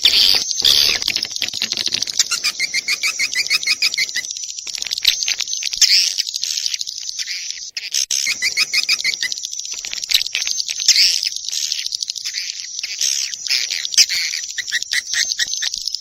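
Swiftlet calls from a lure recording of the kind played in swiftlet houses to draw swiftlets in: dense, high-pitched chirping and twittering, broken by several quick rattling trills of repeated notes.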